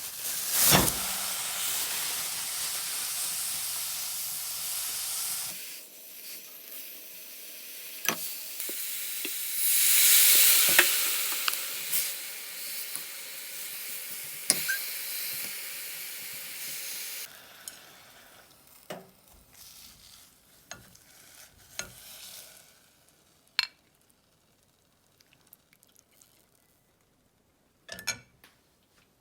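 Food sizzling in a hot frying pan, loudest in the first five seconds and again around ten seconds in, with the clicks of a utensil against the pan. The sizzling stops about seventeen seconds in, leaving only a few scattered light clicks and knocks.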